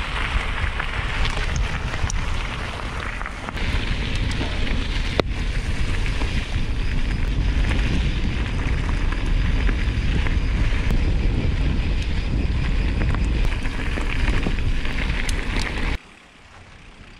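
Mountain bike riding along a rough trail: tyre noise and scattered clicks and rattles, with heavy wind buffeting on the microphone. It cuts off suddenly near the end.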